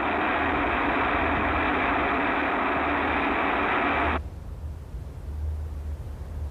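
Small liquid-propellant rocket motor firing with a steady rushing noise that cuts off abruptly about four seconds in, leaving a low rumble.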